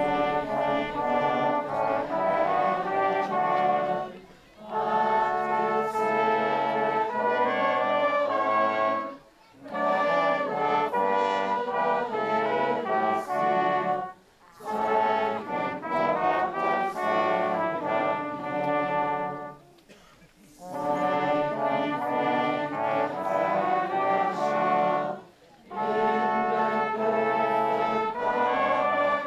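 Brass ensemble of trumpets and trombones playing a hymn tune in phrases of about five seconds, with short breaks between the lines.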